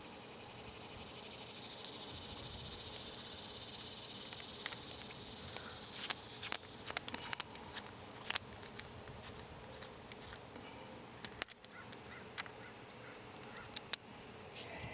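Small plastic clicks and taps as the scope's twist-off port cover is turned and opened, a cluster of them about six to eight seconds in and two single sharper clicks later. Behind them, a steady high insect drone.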